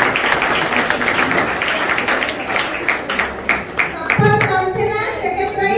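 Applause: many hands clapping in a hall for about four seconds, then a woman's voice over a microphone takes over.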